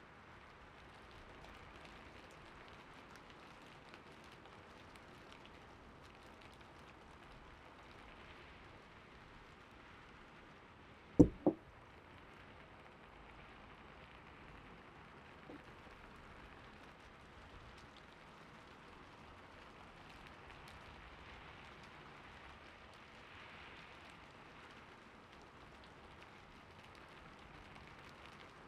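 Steady gentle rain, with two dull thumps in quick succession about eleven seconds in.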